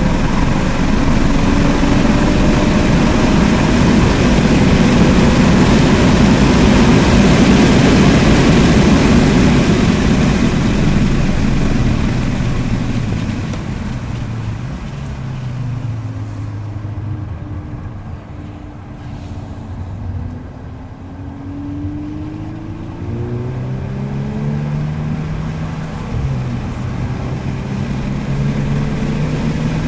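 In-cabin sound of a 2022 VW Golf R's turbocharged 2.0-litre four-cylinder on track. Loud wind and road noise at about 80 mph falls away as the car slows for a corner about twelve seconds in. Then the engine note climbs as it accelerates hard out of the turn.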